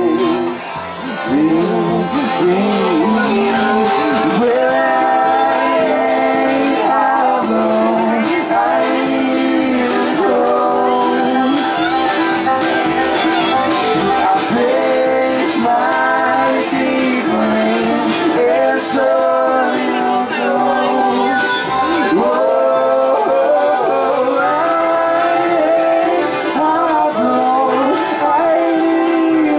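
Live acoustic string band playing a country-style song, with banjo, acoustic guitars and upright bass under male lead vocals.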